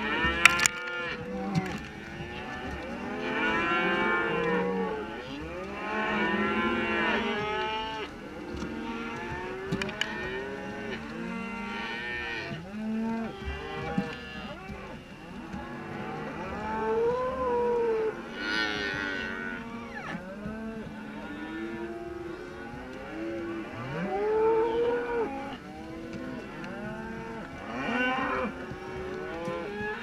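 A herd of beef cattle mooing, many calls overlapping one after another with hardly a pause. A single sharp click about half a second in.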